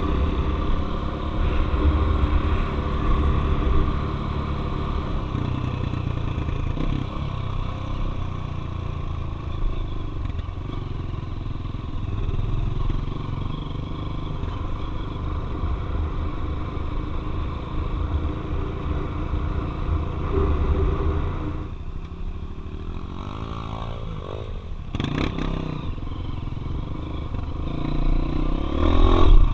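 Single-cylinder four-stroke trail motorcycle riding, its engine note rising and falling with the throttle. It drops back for a few seconds near the end, then swells loud again.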